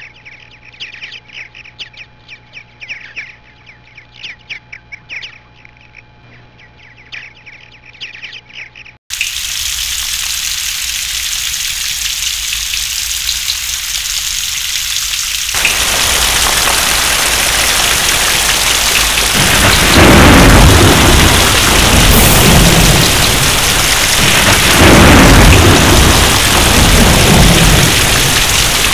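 Birds chirping for about nine seconds, then an abrupt cut to steady rain that grows heavier twice, with rolling thunder rumbles through the last part.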